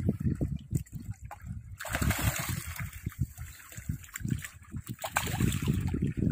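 Shallow seawater splashing and sloshing as a man wades and a speared stingray thrashes at the surface, with irregular low thumps throughout.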